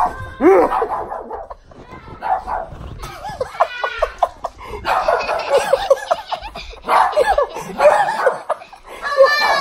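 A dog barking again and again in short, sharp barks, mixed with excited voices and laughter.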